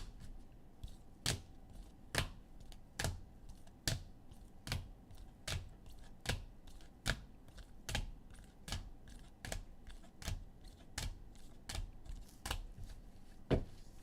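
A regular series of single sharp clicks or taps, a little more than one a second.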